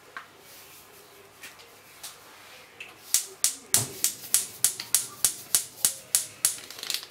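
Foil sachet of dried yeast being tapped and flicked over a plastic mixing bowl to shake out the last granules: a few scattered taps, then from about three seconds in a quick, even run of sharp taps, about three a second.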